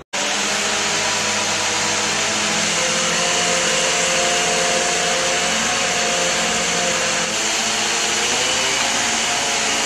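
Truck-mounted hydraulic crane's engine running: a steady machine drone with a hiss over it.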